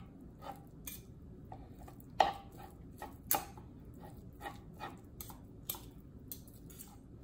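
Two metal forks clicking and scraping against a plastic cutting board while shredding cooked beef chuck: irregular light clicks, with two louder knocks a little past two and three seconds in.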